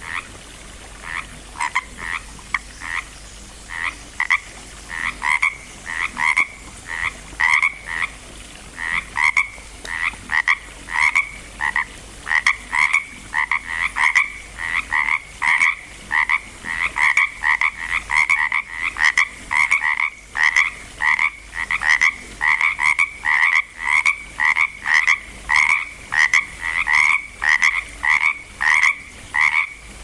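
Pacific chorus frogs (Pacific tree frogs) calling: short two-part ribbit calls, scattered at first, that settle within several seconds into a steady run of about two calls a second.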